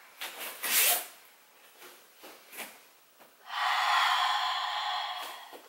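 A woman's audible breathing: a short sharp breath about a second in, a few soft ticks, then one long breathy hiss lasting about two seconds from about three and a half seconds in.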